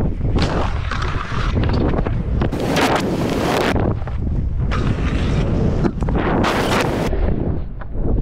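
Wind buffeting the microphone, a constant low rumble, with louder bursts of hiss about two and a half seconds in and again around six and a half seconds in.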